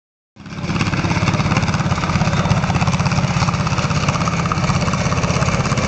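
V-8 mini rod pulling tractor engine running steadily, with a rapid, even firing beat and no revving.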